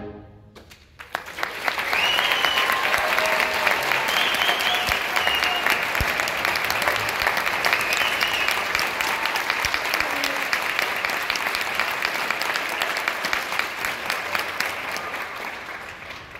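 Audience applauding at the end of a concert band piece, with a few whoops and cheers through it. The clapping breaks out about a second in and tapers off near the end.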